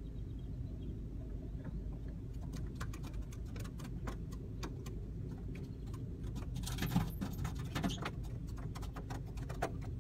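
Steady low rumble of a car heard from inside its cabin, with many scattered sharp clicks and ticks, and a louder noisy burst about seven seconds in.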